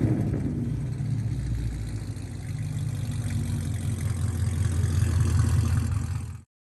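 2017 Camaro ZL1's supercharged 6.2-litre V8 idling through a new axle-back exhaust, growing slightly louder a couple of seconds in. The sound cuts off abruptly near the end.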